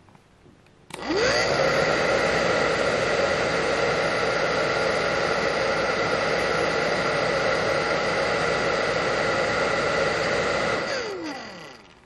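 Inexpensive handheld hair dryer switched on at its high setting about a second in: the motor whine rises quickly to a steady rush of air with a constant hum. Near the end it is switched off and the whine falls away as the fan spins down.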